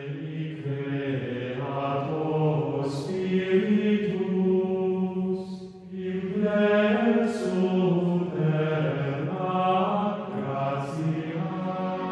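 Slow chanted vocal music: voices holding long notes, with a few soft hissing consonants and a short dip in loudness about halfway through.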